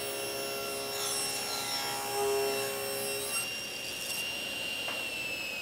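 Tablesaw ripping a board: the spinning blade's steady high whine with louder cutting noise from about a second in until a little past three seconds, when the strip is through and the blade runs free. Near the end the whine starts to drop in pitch.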